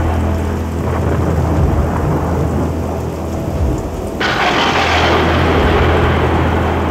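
Thunderstorm: rain with a steady low thunder rumble, the rain noise growing suddenly louder and brighter about four seconds in.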